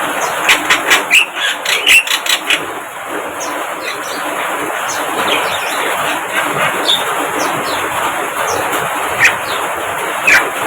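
Javan mynas calling and chattering: a quick run of sharp, harsh clicks in the first two or three seconds, then scattered short chirps and squeaky notes over a dense background of chatter.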